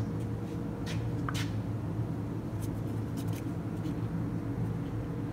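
Steady low machine hum with a few light clicks and taps.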